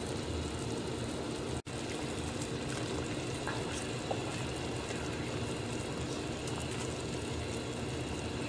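Soup boiling steadily in a stainless steel stockpot on a gas stove, an even bubbling that drops out for an instant about a second and a half in.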